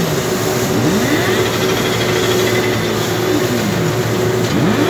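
Case IH JX100 tractor's diesel engine running steadily under load, driving a Paksan S 8002 square baler as it picks up and bales barley straw, heard from inside the cab. A few short tones glide down and back up in pitch over the steady noise.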